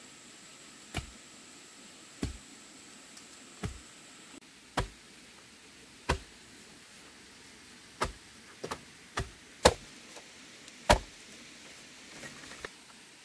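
Repeated sharp chopping strikes, about a dozen, at first roughly one a second and then closer together near the end.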